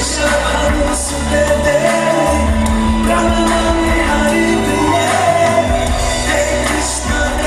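A man singing loudly into a handheld microphone, amplified over live band backing with a bass line whose notes change every second or so.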